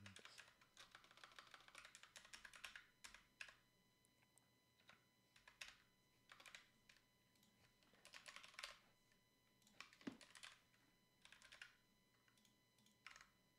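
Faint computer keyboard typing: a quick run of key clicks for the first few seconds, then short bursts of keystrokes with pauses between.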